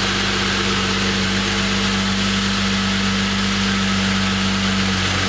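1998 Volkswagen GTI's VR6 engine running steadily at an even, unchanging pitch.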